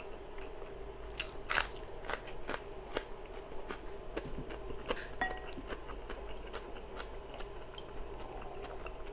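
Close-up chewing with scattered crisp crunches and wet mouth clicks, the sharpest about a second and a half in, over a steady low hum.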